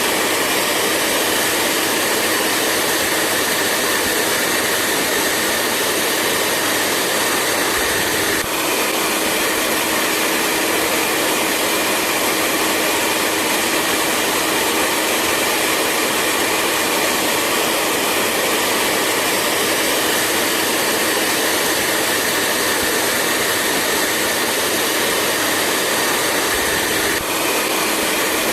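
Hair dryer running steadily: an even rushing blow with a steady hum under it, with a slight hitch about eight seconds in and again near the end.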